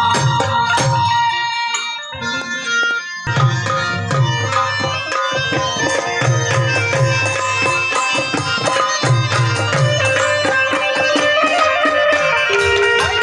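Instrumental passage of Gujarati devotional garba music: hand drums keep a steady beat under a harmonium melody, the drums dropping out briefly about two seconds in.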